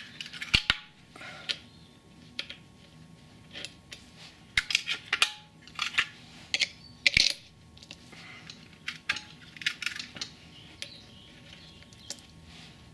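Irregular metallic clinks and clicks of steel parts and tools being handled while the rear wheel hub is fitted onto the axle of an ATV.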